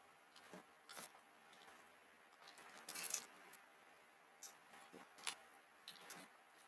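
Faint, scattered clicks and light clatter of a Cherry mechanical keyboard's plastic keys and keycaps being handled, with a quick cluster of clicks about three seconds in and a sharper single click a little after five seconds.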